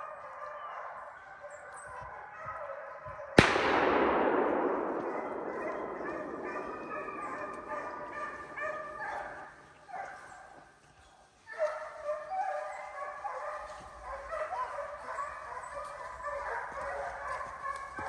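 A pack of deer hounds baying and barking on a deer's trail, with one loud gunshot about three seconds in that echoes away over the next couple of seconds. The baying drops out briefly around ten seconds and then picks up again.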